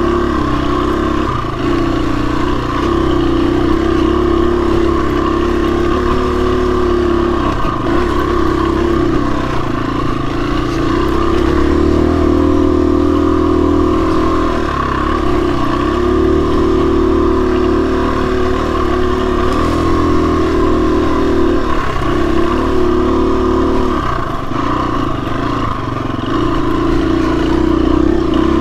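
A KTM 250 enduro dirt bike's single-cylinder engine running on the trail, its pitch rising and falling as the throttle is rolled on and off, with brief dips where the rider backs off.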